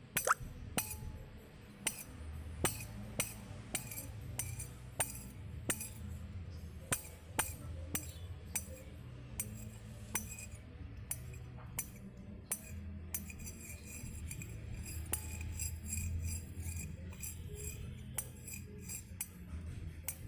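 Background music with a light, steady percussion beat, about one sharp hit every 0.6 s; from about two thirds of the way through it thickens into a faster run of high, shaker-like ticks.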